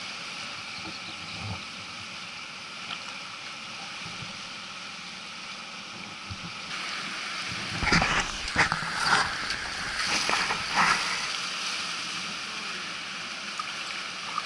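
Kayak paddle blades dipping and splashing into the water beside the boat, several strokes close together about halfway through, over a steady rush of moving water.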